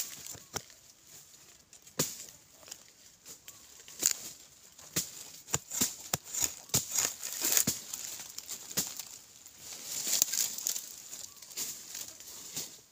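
A bladed hand digging tool chopping and scraping into dry, crumbly soil, with irregular sharp knocks and the scratch and patter of loosened earth between strikes.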